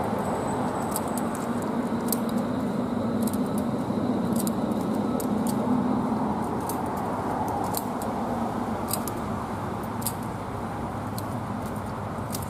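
Steady road traffic noise from the street alongside, swelling a few seconds in as a vehicle passes, with scattered light clicks throughout.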